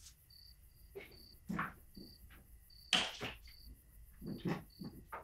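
Cricket chirping in short high chirps, several a second, with a few knocks and clatters of bowls and utensils being handled, the loudest about three seconds in.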